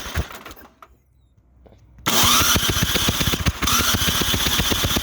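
Snowblower's electric starter cranking the engine in two bursts for a spark check, with a rising whine as it spins up and a rapid regular ticking through it. The first burst dies away early, and the second starts about two seconds in after a short pause.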